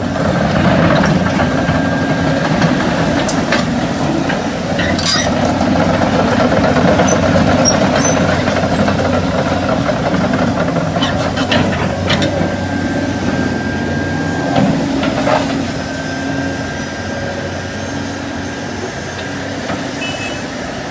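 Heavy diesel engine of construction machinery running steadily, with scattered metallic clanks and knocks; it eases off slightly about two-thirds of the way through.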